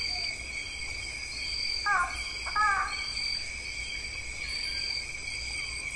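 Outdoor insect chorus: a steady high drone with short, higher chirps repeating about once a second. About two seconds in, an animal gives two short calls in quick succession.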